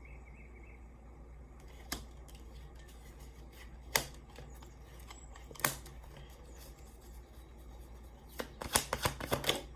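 Tarot cards being handled on a table: three separate sharp card taps a couple of seconds apart, then a quick run of clicks near the end as the deck is shuffled.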